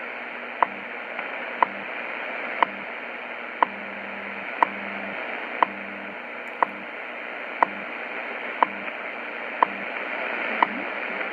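WWV time signal received on a shortwave radio at 5 MHz: a short, sharp tick every second, eleven in all, over steady shortwave static hiss. Underneath, the low buzz of the station's 100 Hz time code pulses on and off.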